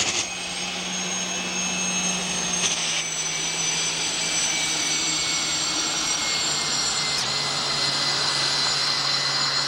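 Unlimited hydroplane running on the water, its engine giving a steady high whine over a lower hum. The pitch drops a step twice.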